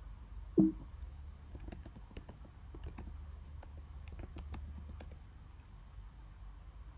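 Typing on a computer keyboard: a quick run of key clicks from about one and a half to five seconds in, over a faint steady low hum. About half a second in there is one short, louder low sound, the loudest moment.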